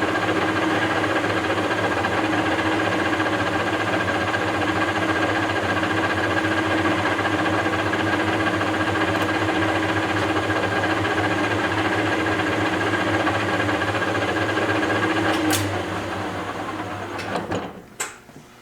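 Webb WL435 17x40 gap lathe running steadily with a hum and a whine under a facing cut. About fifteen seconds in there is a click and the machine winds down to near quiet, with a few small clicks after.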